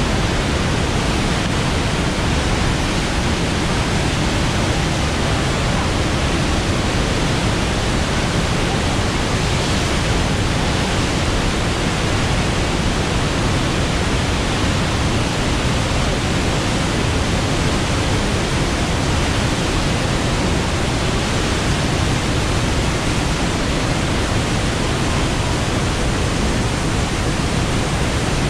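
Steady roar of a large waterfall in flood: the Orange river's muddy torrent pouring over Augrabies Falls and churning in the gorge below. The loud, even rush does not let up.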